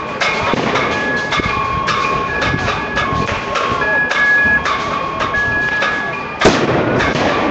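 Metal being struck over and over, about two irregular strikes a second, with ringing tones between the strikes. A single loud bang breaks in about six and a half seconds in.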